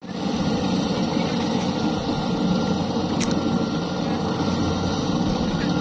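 Kubota combine harvester running steadily, a dense, even mechanical rumble with a brief click about three seconds in.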